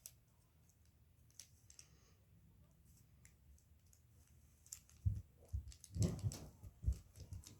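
Plastic clicks and clacks of a 1x3 puzzle cube's layers being twisted by hand. A few faint ticks at first, then a busy run of clicking from about five seconds in.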